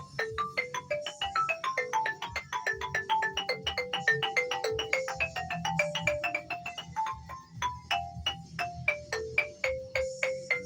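Mallet percussion played in fast melodic runs: marimba-like struck notes, about five a second, each dying away quickly, over a low pulsing beat.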